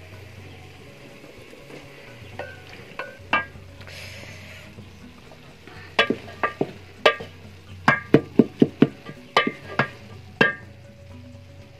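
Wooden spoon knocking against aluminium cooking pots as cooked beans are scooped from one pot into another; each knock rings briefly with a metallic tone. A few scattered knocks at first, then a quick run of about a dozen in the second half.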